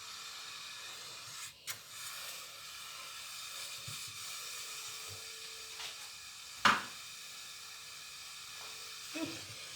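Steady sizzling hiss of a pot of pap on a hot stove plate, where porridge has spattered over. One sharp knock about two-thirds of the way through.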